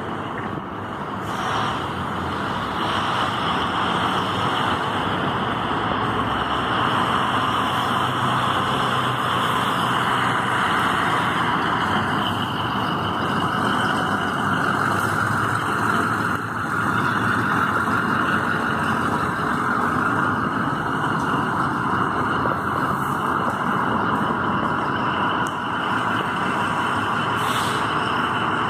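Trolley-wire de-icing truck running as it creeps along under the overhead wires with its trolley poles up: a steady, even mix of engine and machinery noise with a hiss.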